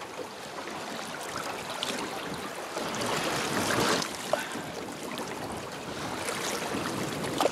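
River water splashing and sloshing at the side of a boat, a dorado held in the water for release. The splashing swells about three to four seconds in, with a brief sharp splash just after.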